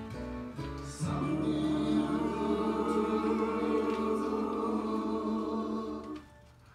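A group of people singing together: a few short notes, then one long held chord that fades out near the end.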